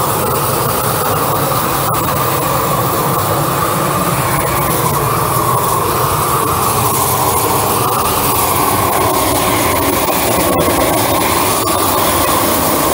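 Long-wand propane torch burning steadily, a continuous loud rush of flame, as it chars the surface of timber beams.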